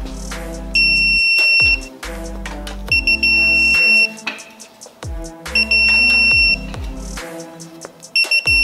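Digital torque wrench beeping its target alert, a steady high electronic tone about a second long, repeated about every two and a half seconds as each cylinder-head bolt reaches its 90-degree angle. Background music with a bass line plays underneath.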